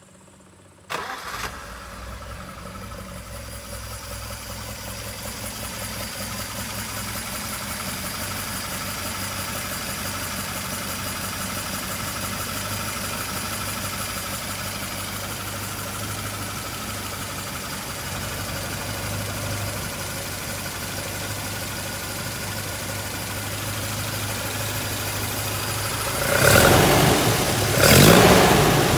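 Freshly built Volvo B230 four-cylinder rally engine on twin Weber 45 DCOE carburettors, breathing through open velocity stacks, starting about a second in and then idling steadily. Near the end the throttle is blipped twice by hand at the carb linkage, two short sharp revs.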